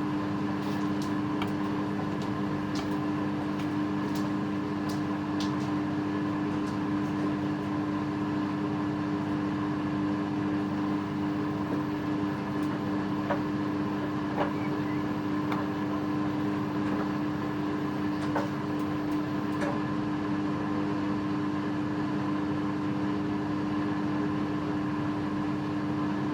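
Samsung EcoBubble washing machine running with a steady, even hum, with faint light ticks here and there.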